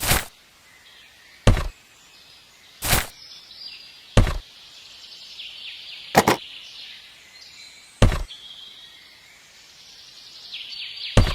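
A series of sharp knocks, seven in all, spaced irregularly one to three seconds apart, one of them a quick double knock about six seconds in, over faint high chirping in the background.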